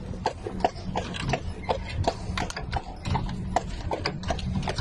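Rapid, irregular hard clacks, several a second, over a steady low rumble of background noise.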